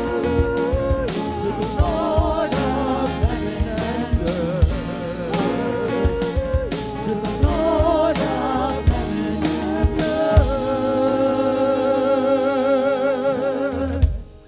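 Contemporary worship band playing, with singers over drums; about two-thirds of the way through the drums drop out and the song ends on a long held sung note with vibrato over a sustained chord, which cuts off just before the end.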